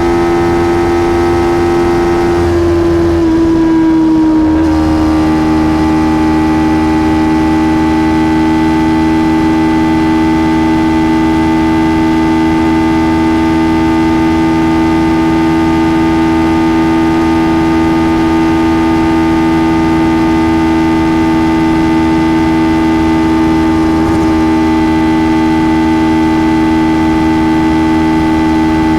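Kawasaki Ninja 300's parallel-twin engine running at a steady high speed on the stock exhaust, a constant pitched drone. Its pitch dips slightly about three seconds in, then holds level.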